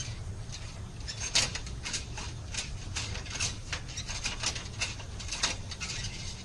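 Metal hook tool clicking and scraping inside a narrow stile door as it catches at a broken flush bolt's flip mechanism, which is wedged on the bolt. The light clicks come irregularly, two or three a second.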